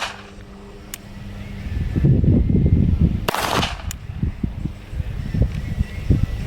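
A single shot from a Beretta Bobcat .22 LR pistol about three seconds in, sharp with a short ring-off, with a faint click about a second in and low rumbling noise between.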